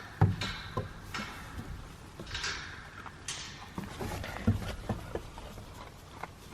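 A farm animal crunching and chewing hay: irregular small crunches and clicks, with a few short rustling bursts about a second apart in the first few seconds.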